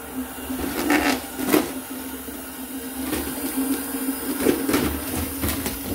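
Plastic carrier bag crinkling in short sharp rustles, about four times, as it is handled on a toilet rim, over a steady low hum.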